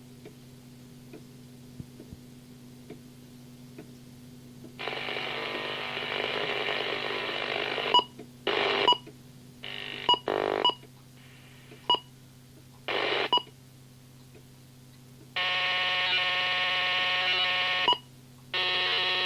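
Scanning radio receiver's audio between transmissions: a low steady hum, then bursts of hiss and buzzing tones that switch on and off abruptly with sharp clicks, several short ones and a longer buzz of about two and a half seconds near the end.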